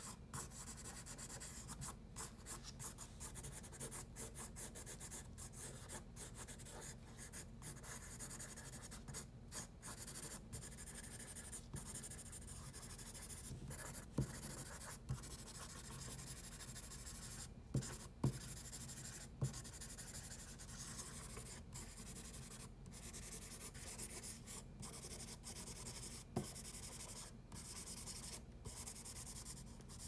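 Pencil scratching on paper in short shading strokes, with many brief breaks as the pencil lifts. A few sharp taps come a little past the middle.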